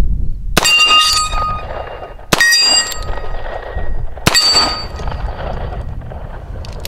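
Three revolver shots from an 1858 Remington New Army replica fitted with a Howell .45 ACP conversion cylinder, spaced about two seconds apart. Each shot is followed by the ringing of a struck steel plate target. The loads are light .45 ACP loads.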